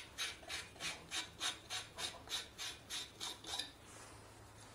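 Rhythmic rasping, about three strokes a second, as a chrome washbasin drain pipe fitting is twisted back and forth in its wall connection, where it is held by a packing rather than screwed in. The rasping stops just under four seconds in.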